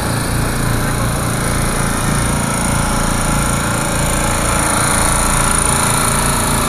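Several small portable generators running together, a loud, steady engine drone.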